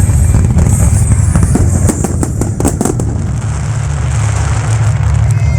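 Fireworks display: a rapid run of sharp bangs and crackles about two to three seconds in, over a constant heavy low rumble of the bursts.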